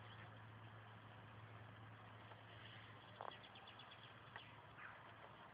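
Near silence: room tone with a steady low hum, and a few faint short clicks past the middle.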